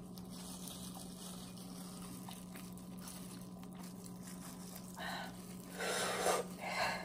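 A seafood shell being cracked and pulled apart by hand in disposable plastic gloves: a few short crackling, crunching bursts starting about five seconds in, over a steady low hum.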